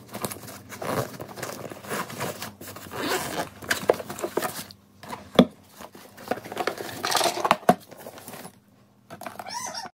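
Packaging being handled, torn and crumpled: irregular rustling and tearing, with a sharp click about five and a half seconds in.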